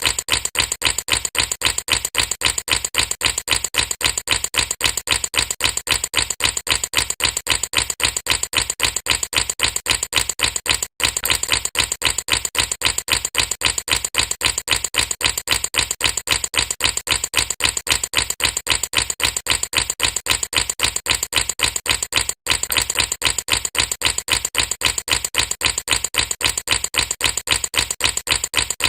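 Air bubbles popping in a rapid, very regular stream of clicks, several a second. The sound drops out for an instant about every eleven seconds, as a looped recording does.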